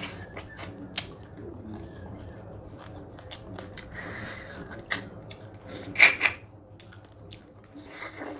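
Close-up wet chewing and lip smacking of a person eating fish curry and rice by hand, with many small mouth clicks. There are two louder wet mouth sounds about six seconds in.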